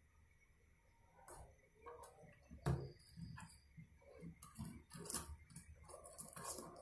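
A TV mainboard and its wire harness being handled and set down on a tabletop: scattered light clicks, taps and rustles, with one sharper knock about three seconds in.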